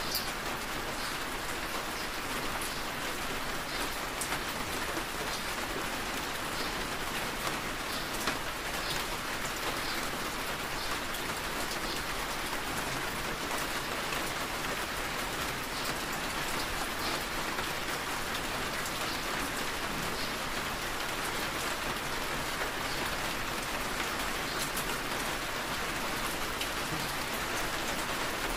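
Steady rain falling on a car's windshield and roof, heard from inside the cabin: an even hiss with scattered small ticks of individual drops.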